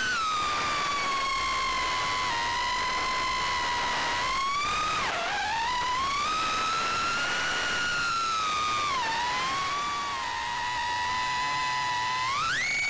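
FPV quadcopter's brushless motors and propellers whining, the pitch rising and falling with the throttle: a sharp dip about five seconds in, a drop around nine seconds, and a steep climb near the end.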